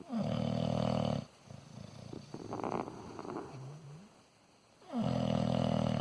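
Deep snoring: two loud droning snores, each about a second long and about five seconds apart, with a softer rasping breath between them.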